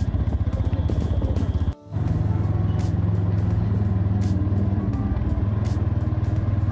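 Motorcycle engine running steadily while riding, a dense rhythmic low rumble, with a brief break about two seconds in.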